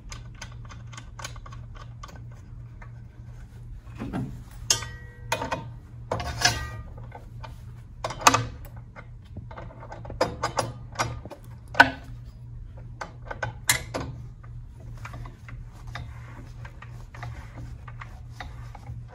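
Irregular small metal clicks and clinks as the cap and bolt holding a cutoff saw's diamond blade are tightened by hand, with a few sharper knocks, over a steady low hum.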